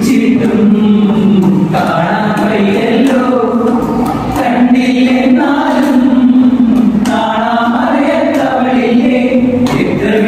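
Choral singing: several voices singing together in long held notes.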